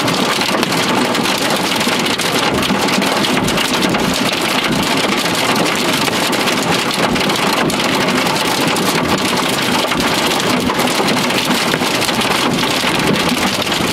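Steady, loud rain from a thunderstorm, a dense patter of many drops striking.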